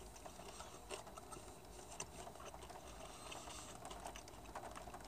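Faint, irregular small clicks and ticks of someone chewing food.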